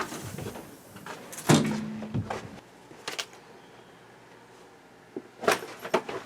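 A few separate clunks and knocks, the loudest about a second and a half in and two more close together near the end.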